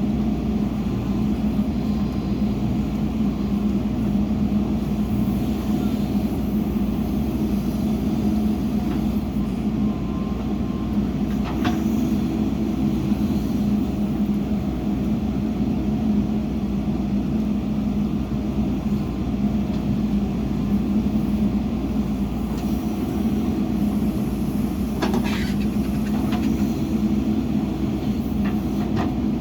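Heavy diesel engine of earthmoving machinery running steadily under work, with a strong low hum. Two brief knocks stand out, one about twelve seconds in and one near the end.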